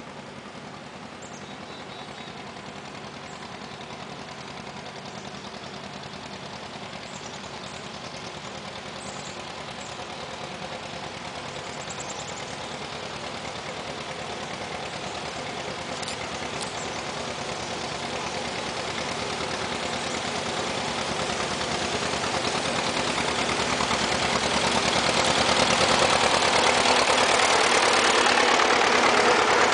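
A procession of vintage farm tractors, their engines running steadily, growing gradually louder as the line approaches.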